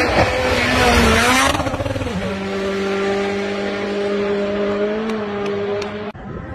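Rally car engine passing at speed on a gravel stage, its pitch swinging up and down over a loud rush of noise for about a second and a half, then settling into a steady engine note that cuts off suddenly near the end.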